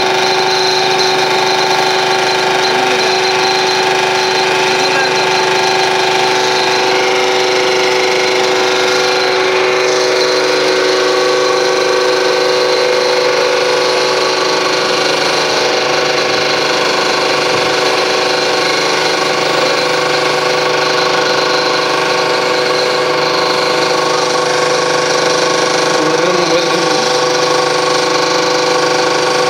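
Hydraulic power pack, its electric motor and pump running steadily and driving an MB 84 hydraulic motor on a run test: an even machine hum with several fixed tones that does not change.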